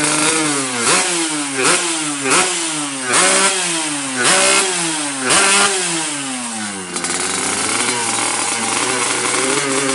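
Yamaha RX-King 135 cc two-stroke single engine blipped about six times in quick succession from idle, each rev rising sharply and falling away. After the last, longer fall it settles back to a steady idle about seven seconds in.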